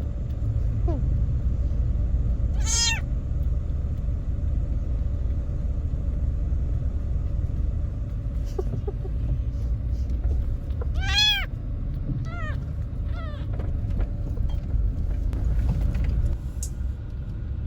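Kitten meowing: two clear meows, about 3 seconds and 11 seconds in, followed by a few fainter short mews, over a steady low rumble.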